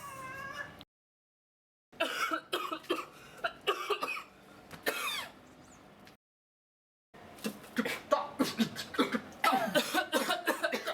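A person coughing and clearing their throat in short repeated bursts, cutting off to dead silence twice for about a second; near the end the coughs come fast, several a second.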